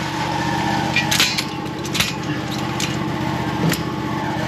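Miller Trailblazer welder-generator's engine idling steadily while it warms up, with a few sharp metallic clinks of tools being handled about a second in, at two seconds and near the end.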